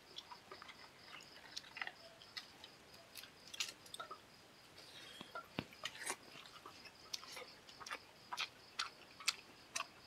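Close-miked wet chewing and lip smacking of a man eating curry and rice by hand: irregular short smacks and clicks, coming faster after about six seconds.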